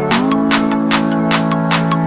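Electronic background music with a steady beat, about four hits a second, over sustained synth tones.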